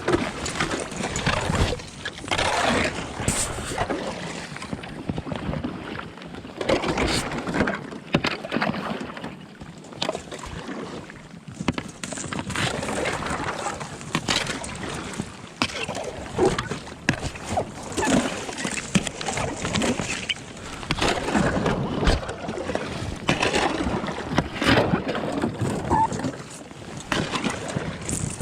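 Thin lake ice cracking, crunching and scraping as a packraft is paddled through it, the paddle strokes breaking the ice in irregular bursts.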